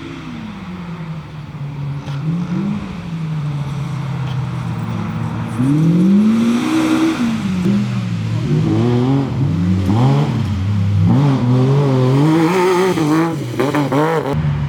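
Off-road race vehicle engine revving hard, its pitch rising and falling over and over as it accelerates and eases off, getting louder about six seconds in.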